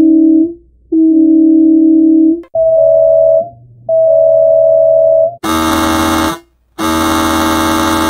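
Volvo bus horn sound effect, digitally altered into three successive versions, each two blasts, a short one and then a longer one. First a low, dull pair with no brightness, then a higher pair of thin, pure tones, then near the end a pair with a much fuller, buzzier tone.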